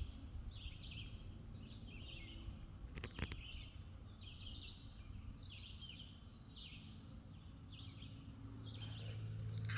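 A bird calling over and over, a short chirping call about once a second. There is a sharp click about three seconds in, and a low steady hum comes up near the end.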